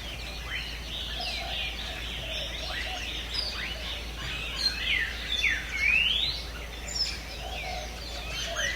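Several birds chirping and calling together, many short whistles overlapping, some sweeping quickly upward in pitch.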